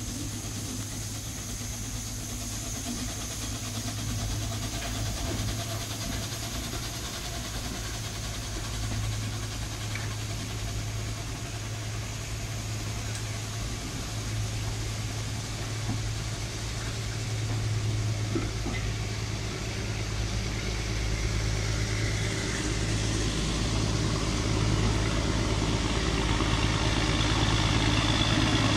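Diesel engine of a BR Class 03 shunter running with a steady low drone. It grows louder over the last ten seconds as the locomotive draws near.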